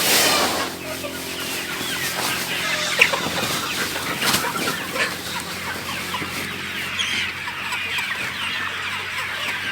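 A flock of chickens clucking and calling, many short calls overlapping, over a low steady hum. A sharp click stands out about three seconds in.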